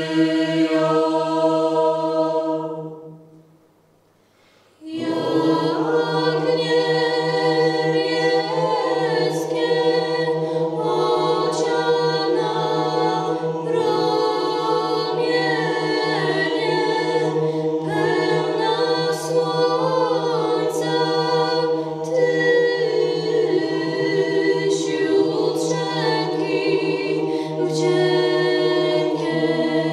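Choir singing, breaking off into a short pause about three to four seconds in and then starting again.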